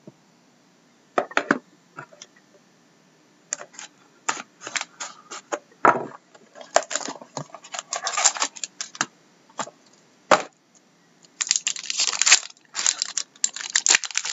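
An 11-12 Upper Deck Ultimate hockey card box being opened by hand: scattered clicks and taps of the cardboard box, with bits of crinkling. About eleven seconds in comes a dense run of crinkling and tearing as the shiny card pack is torn open.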